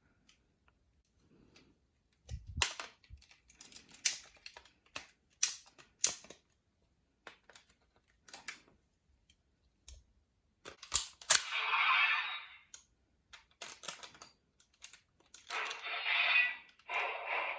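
Folded paper toys being handled: a run of sharp clicks and taps, with paper rustling about two-thirds of the way through and again near the end.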